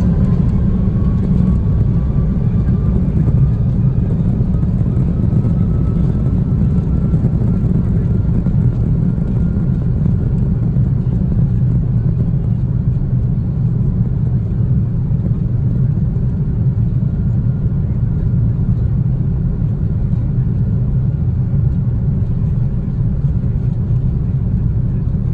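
Steady low roar of an Airbus A330-200 heard from inside the passenger cabin, with a faint whine that rises slowly in pitch during the first half.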